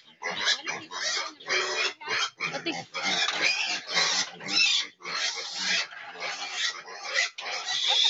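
Hungry piglets squealing and grunting in a rapid, unbroken run of overlapping calls, noisy because they want to be fed.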